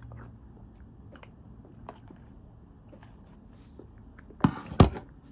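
A person eating from a plastic tub with a spoon: faint spoon clicks and chewing. Near the end come two loud, short, sharp sounds about a third of a second apart.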